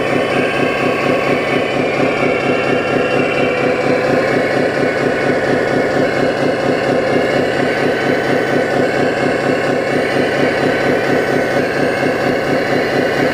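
Diesel engine sound from a scale RC construction model's sound module, running steadily with a fast, even pulse. A higher whine drifts up and down in pitch above it.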